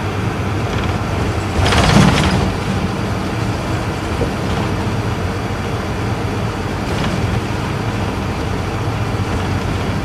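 Isuzu Erga Mio bus's inline-six diesel engine running steadily while the bus drives, heard from inside the cabin with road noise. A brief, louder rush of noise comes about two seconds in.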